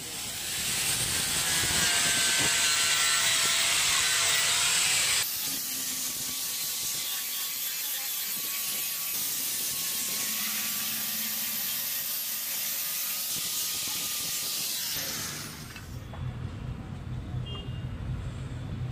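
Electric angle grinder running with an abrasive disc ground against the steel edge of a forged curved knife blade: a steady motor whine under loud hissing grinding noise. The pitch of the whine shifts abruptly a little past five seconds in, and the grinding stops about fifteen seconds in, leaving a lower rumble.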